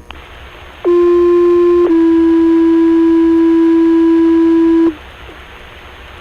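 Two-tone sequential paging tones over a fire dispatch radio channel: a steady tone about a second long, then a slightly lower tone held for about three seconds. These alert tones set off the firefighters' pagers. Radio hiss sits before and after the tones.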